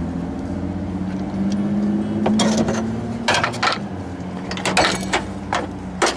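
Channel-lock pliers clicking and clanking on the upper radiator hose and its clamp, several sharp clicks from about two seconds in, over a steady low engine hum.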